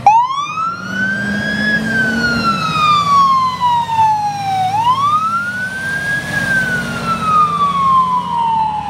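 Ambulance's electronic siren switching on in wail mode, sweeping slowly up and down in pitch twice.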